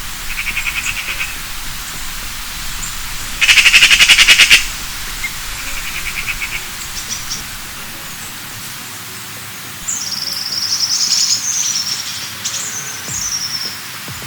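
Outdoor wildlife calls: short, rapidly pulsed frog trills, one of them much louder for about a second, followed from about ten seconds in by a high warbling birdsong with gliding notes.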